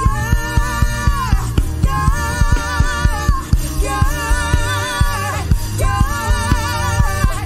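Live gospel worship music: a woman's voice sings four long held notes with a wavering vibrato over keyboard, bass guitar and a steady, quick beat.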